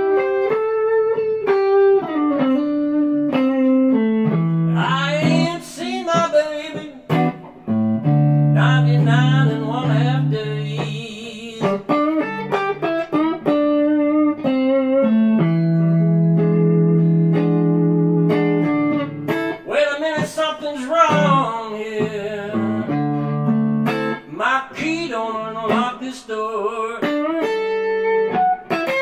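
Solo electric guitar, a Fender Telecaster, playing a blues lead: single-note runs with bent notes and vibrato, between held lower notes and chords.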